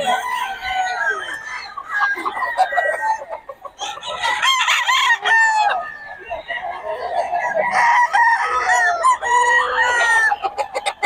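Several gamecocks crowing, their long calls overlapping one another almost without a break, with a brief lull about three and a half seconds in.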